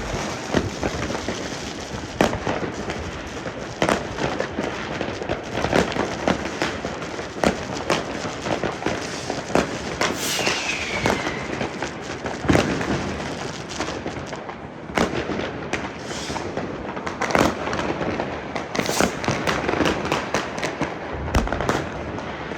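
Many fireworks going off at once: continuous crackling with frequent sharp bangs from rockets and firecrackers, and a falling whistle about halfway through.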